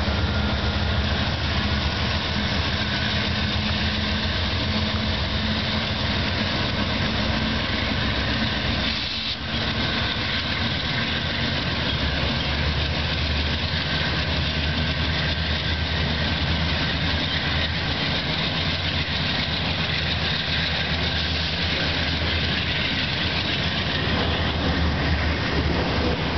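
Diesel freight locomotive engine running as it passes close by, then the steady rumble and rattle of double-stack intermodal container cars rolling past on the rails.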